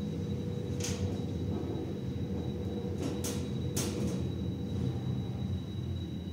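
Elevator car travelling in its shaft: a steady low hum with a faint steady whine, and several short sharp clicks, one about a second in and a quick group of three around the middle.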